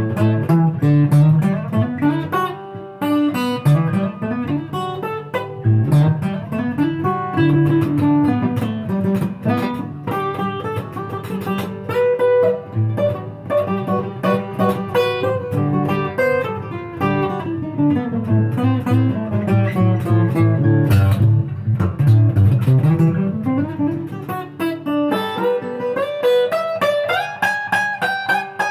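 Solo acoustic guitar played as an instrumental passage: quick picked notes in runs that climb and fall, mixed with strummed chords.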